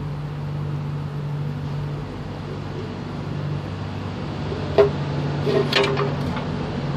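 A steel automatic transmission pan breaks free of its gasket seal as it is pulled down. There is a sharp knock about five seconds in, followed by a few quick metallic clinks, over a steady low hum.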